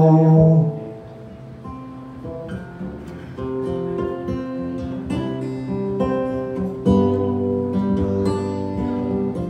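Solo acoustic guitar playing an instrumental passage: a held note fades in the first second, then quieter picked notes follow, and the playing grows fuller and louder with lower notes about seven seconds in.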